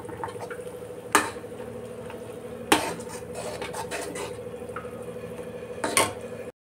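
A spoon stirring curry in an iron kadhai, knocking sharply against the pan about three times over a steady hum; it cuts off suddenly near the end.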